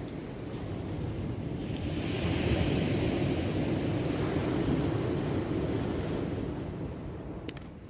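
Sea surf: a wave washing up the shore, swelling about two seconds in and falling away near the end, with wind on the microphone.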